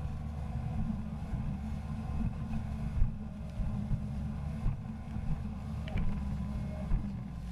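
Jet ski engine running with water and wind noise, heard as a steady, dull rumble.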